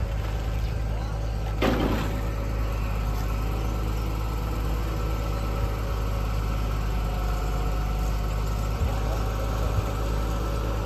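Engine of concrete-pouring machinery running steadily, a constant low drone with a steady hum over it. A brief louder rush comes about two seconds in.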